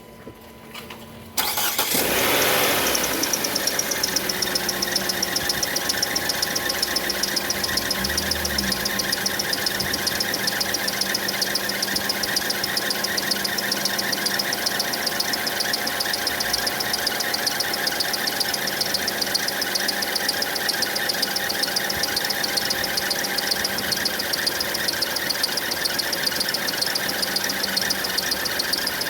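Car engine starting about a second and a half in, then idling steadily, with a fast, even high-pitched chirping from the accessory drive belt. The belt noise is the fault being shown.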